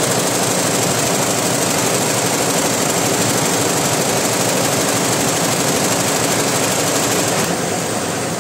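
Multi-head computerised embroidery machine running, its row of needle heads stitching with a fast, steady mechanical clatter. It gets slightly quieter near the end.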